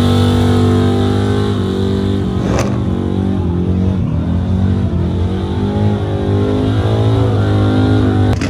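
Loud car engine running at held, nearly steady revs, its pitch dipping slightly midway, with one sharp click about two and a half seconds in.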